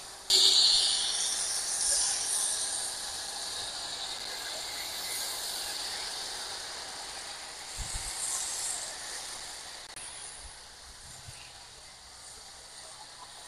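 A loud hiss that starts suddenly just after the beginning and slowly fades over the following seconds, with a brief low knock about eight seconds in.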